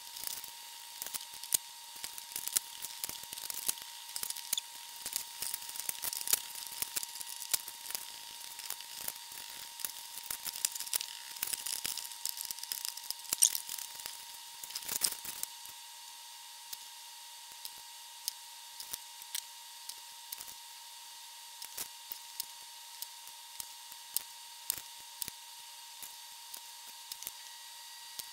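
Small metal parts clicking and clinking: BNC connectors, nuts and washers are handled and knocked about inside a sheet-metal chassis. Dense clatter runs for about fifteen seconds, then thins to occasional single clicks. A faint steady high hum sits underneath.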